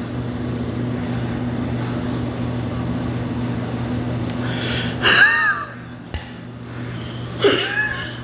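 A steady machine hum, then two short, high, rising-and-falling vocal cries about five and seven and a half seconds in.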